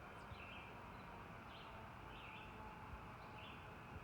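Birds chirping in the distance: a short, high chirp repeated about every half second, faint over a steady outdoor background hiss.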